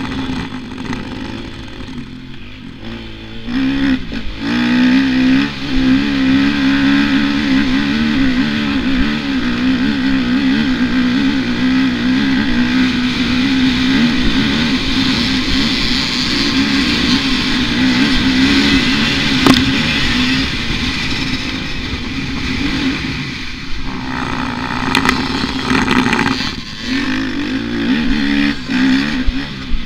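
Motocross bike engine heard from the rider's seat, under hard throttle: the revs climb about four seconds in and stay high for a long stretch, then ease off twice toward the end.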